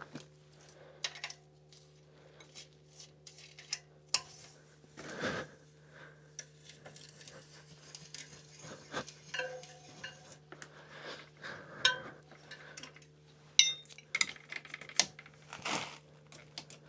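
Hand tools and metal wheel hardware clinking and knocking in irregular, scattered strikes as a trike's front wheel is removed and refitted.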